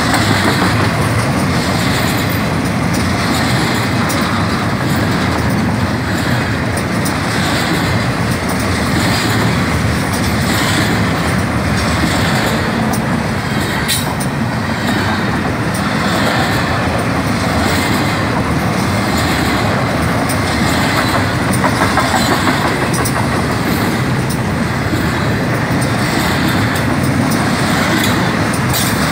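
Double-stack intermodal freight train's well cars rolling past: a loud, steady rumble and clatter of steel wheels on the rails, with a faint regular repeating beat.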